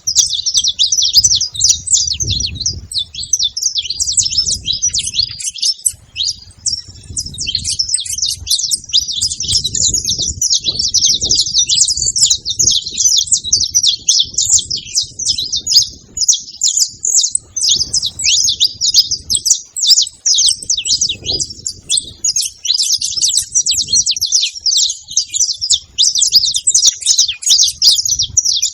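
Saffron finches chirping: a dense, unbroken stream of quick high chirps, with a low uneven rumble underneath.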